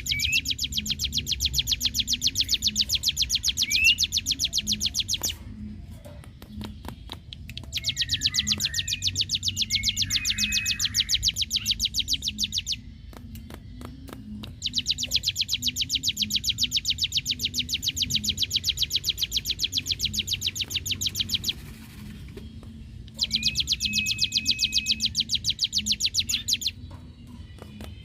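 Ciblek gunung (cigun) singing its 'ngebren' song: four long, fast rattling trills of high, evenly repeated notes, each lasting several seconds, with short pauses holding a few brief rising whistles.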